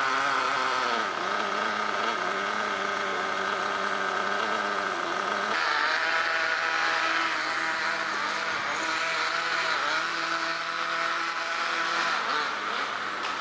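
Small nitro glow engine of a radio-controlled drift car running and revving, its pitch rising and falling, with the carburettor set rich. About five seconds in the sound jumps abruptly to the car out on the track, the engine still revving up and down.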